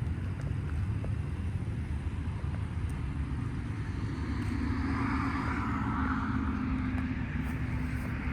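Car driving slowly, heard from inside the cabin: a steady low rumble of engine and road noise with a faint engine hum, and a hiss that swells about halfway through.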